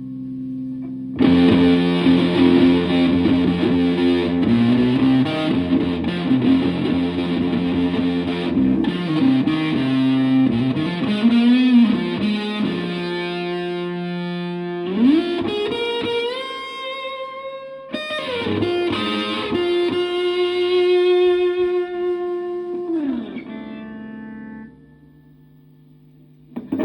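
Electric guitar through a germanium Fuzz Face-style fuzz pedal into a tube amp, playing fuzzy sustained chords and then held lead notes that slide up in pitch twice. The playing stops with about two seconds to go, leaving a faint hum.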